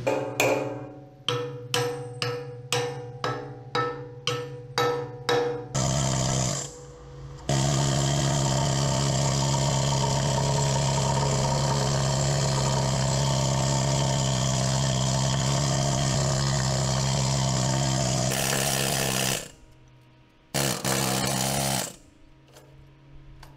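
Hammer blows on rusted steel armour plate around a tank's vision block, about two a second, each ringing; the rust caked into the block is being knocked loose. A power tool then runs steadily for about ten seconds, and two short, loud bursts of noise follow near the end.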